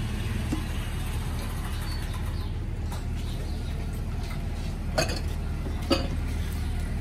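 Two sharp clinks a little under a second apart near the end, from the serving ladle knocking in a large steel cooking pot, over a steady low background hum.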